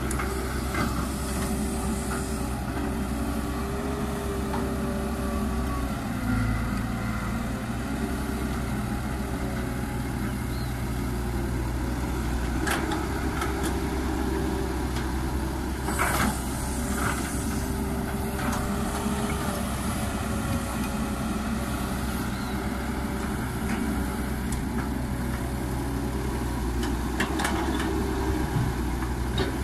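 CAT 312B excavator's diesel engine running steadily under work, with a steady hydraulic whine that shifts slightly as the boom and bucket move. A few sharp clunks, several seconds apart, come as bucketloads of soil are dropped into the steel bed of the dump truck.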